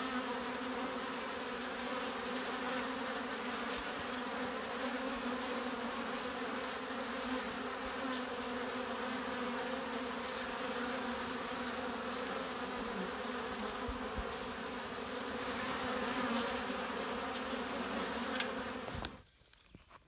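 Honey bees buzzing at a hive entrance, many wings humming at once in a steady drone; it cuts off suddenly about a second before the end.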